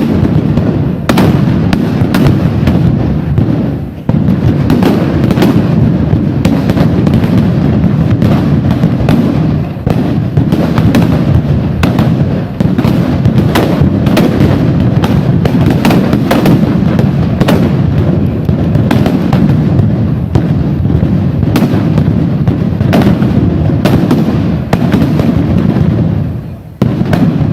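Dense, continuous crackle of gunpowder explosions, many sharp bangs in rapid succession like a long string of firecrackers, dipping briefly a few times.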